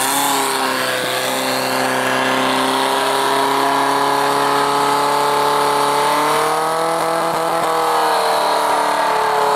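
Portable fire pump's petrol engine running flat out at a steady high note, driving water through the hoses to the nozzles. The pitch dips slightly near the start and rises and falls a little about six to eight seconds in.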